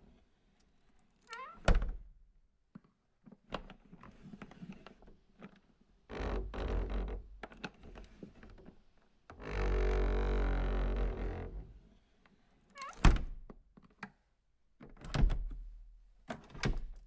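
A vibrating device buzzing against a wooden surface: two long rattling buzzes in the middle, with several sharp knocks and short buzzing bursts before and after.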